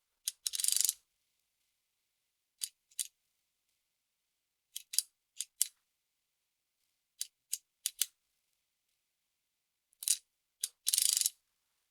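Soroban beads clicking against the rods and frame as they are flicked up and down, in single clicks and quick pairs with pauses between. Twice, about half a second in and again near the end, comes a longer rattle of many beads clicking together.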